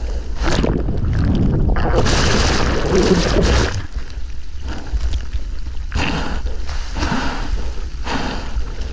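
Splashing and rushing seawater as a surfer paddles out through breaking waves, picked up close on a GoPro's microphone. A louder rush of water starts about two seconds in and lasts over a second, and further splashes follow every second or so.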